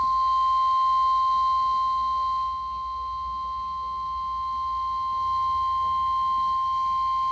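NOAA Weather Radio 1050 Hz warning alarm tone: one steady, unbroken high tone received over a weather radio. It is the signal that wakes alert radios and precedes a warning broadcast.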